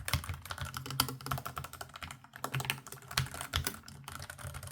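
ASUS ROG Falchion RX Low Profile keyboard with red linear switches, typed on quickly and at random: a fast, uneven run of keystrokes, each a soft click over a low thud as the key bottoms out.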